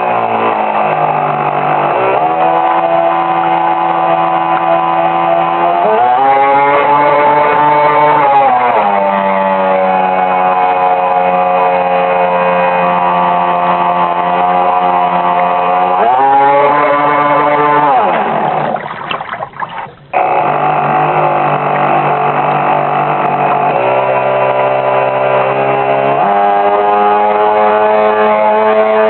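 Motor of a Riva launch heard from on board, its pitch stepping up and down several times as the throttle changes. About two-thirds of the way in, the sound falls away almost to nothing for a second or two, then picks up again.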